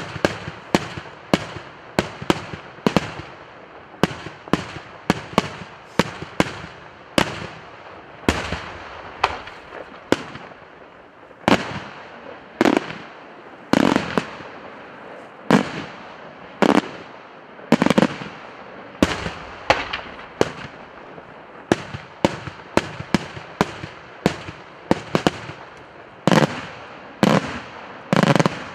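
Daytime fireworks: aerial shells bursting in a rapid, irregular string of loud, sharp bangs, about one to two a second.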